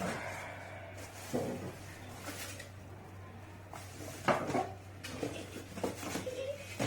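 Scattered light clicks and knocks of hard computer parts and their packaging being handled and turned over, loudest a little past four seconds in.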